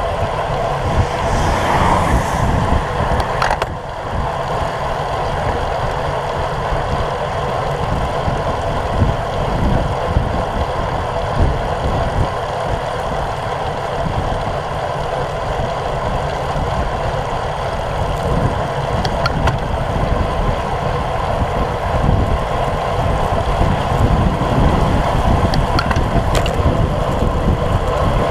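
Wind rushing over a bicycle-mounted action camera's microphone at about 30 km/h, with tyres hissing on wet pavement. The steady rumble is broken by a few faint ticks late on.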